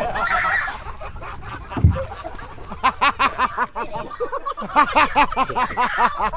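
Men laughing hard, in rapid repeated bursts of several per second, from about three seconds in.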